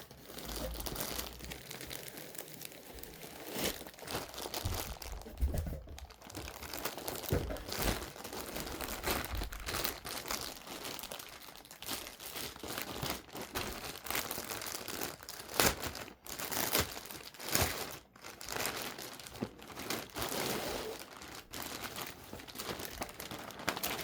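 Packaging crinkling and rustling under continuous handling, with many sharp crackles, as a new pet backpack carrier is unwrapped.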